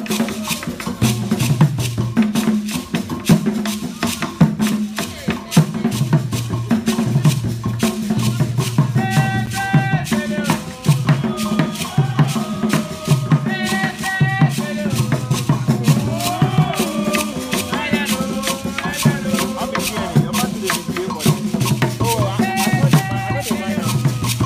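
Music with a fast shaker rattle over a repeating low bass pattern, and a melody coming in about nine seconds in.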